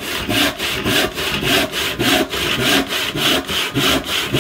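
Modern hand saw with a dull blade cutting through a board in quick, steady push-and-pull strokes, about three rasping strokes a second.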